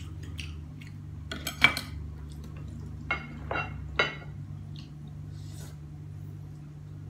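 A knife and utensils clinking and knocking against a serving tray while a roast duck is carved: a cluster of sharp clicks about a second and a half in, then three more about half a second apart, over a steady low hum.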